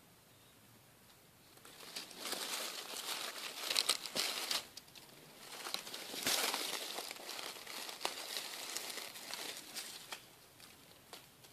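Dry fallen leaves rustling and crackling as a hand pushes through the leaf litter to reach and pick Verpa bohemica mushrooms. The irregular crackle starts after about a second and a half of quiet, is loudest about four and six seconds in, and dies down near the end.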